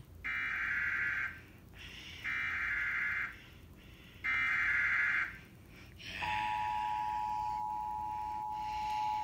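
Emergency Alert System tones played from a TV: three one-second bursts of warbling SAME header data about two seconds apart, then the steady two-tone attention signal starting about six seconds in. The tones announce a severe thunderstorm warning.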